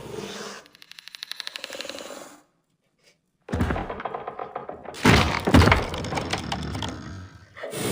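Designed monster sound effect: a rapid train of clicks, a second of silence, then a loud run of dense cracking and clicking lasting about four seconds.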